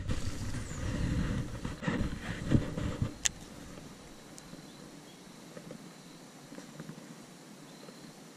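Low rumbling wind and handling noise on a camera's built-in microphone for about the first three seconds, then a single sharp click. After that there is only quiet outdoor background with a few faint ticks.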